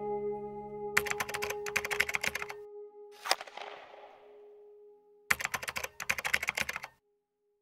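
Keyboard-typing sound effect in two rapid bursts of clicks, about a second in and again after five seconds, with a single sharp hit and a fading swish between them. A held musical tone underlies it and fades out; everything stops shortly before the end.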